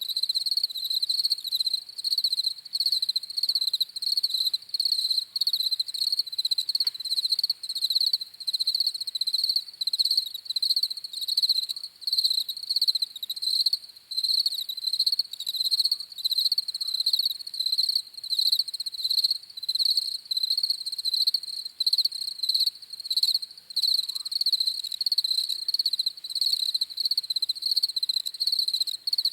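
Crickets chirping: a continuous, high-pitched pulsing trill in rapid rhythmic chirps, broken by brief gaps every second or so.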